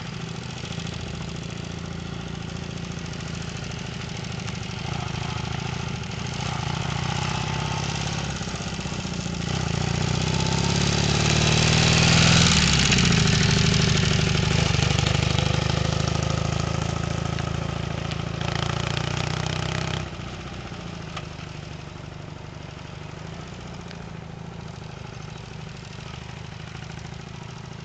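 Motorcycle engine running as the bike is ridden, growing louder to a peak about twelve seconds in and then fading. The sound drops suddenly near twenty seconds to a lower, steady engine note.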